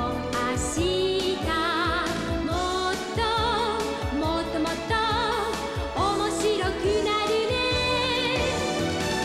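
Upbeat pop song with a sung voice over a steady drum beat, the opening theme music of a children's TV show.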